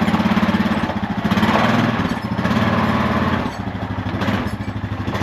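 Four-wheeler (ATV) engine running at low speed while being driven, its level easing off and picking up again a couple of times with the throttle.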